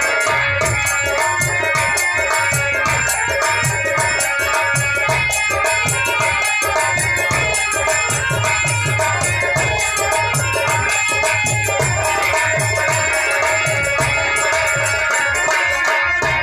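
Harmonium playing sustained reed chords and melody over a steady beat of low drum strokes.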